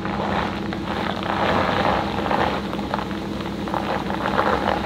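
Wind rushing and buffeting over the microphone with road noise as a bass boat is towed on its trailer down a road, a steady low hum underneath.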